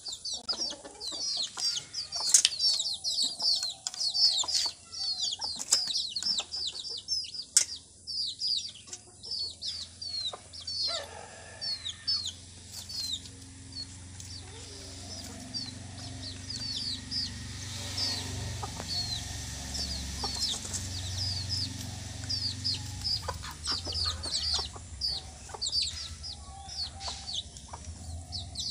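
Young chickens peeping and clucking: a steady stream of quick, high, downward peeps, with wing flaps and sharp knocks now and then. A low rumble sits under the middle of it.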